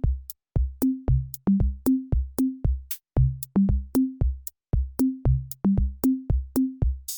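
Electronic background music: a drum-machine beat of kick drums and short pitched bass notes, without other instruments.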